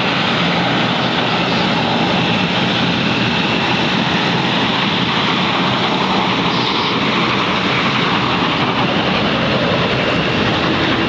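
Bombardier DHC-8-402Q Dash 8's Pratt & Whitney Canada PW150A turboprop engines and propellers running, a loud steady drone with a faint high whine.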